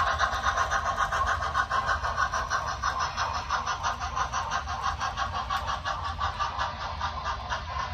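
Model steam locomotive's sound system chuffing in a steady rhythm of about five chuffs a second, growing a little quieter as the train moves away.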